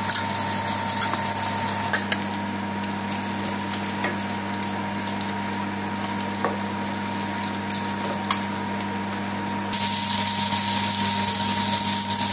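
Hot vegetable oil sizzling in a frying pan, with small pops over a steady hum. About ten seconds in the sizzle jumps suddenly louder and brighter as grated onion goes into the hot oil.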